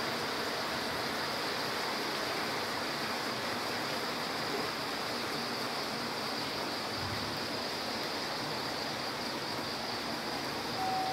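Steady, even hiss of background noise in a large open-sided hall, with no speech. Faint musical tones begin just before the end.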